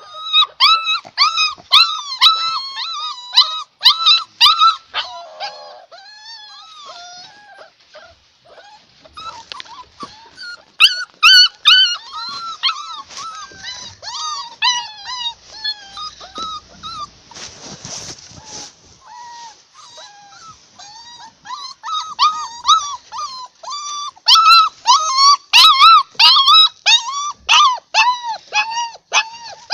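Dogs whining in a long run of short, high-pitched cries, easing off for a few seconds now and then and getting loud again near the end.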